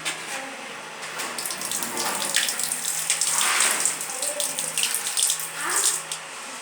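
Water running from a tap and splashing into a basin, louder from about a second in until near the end.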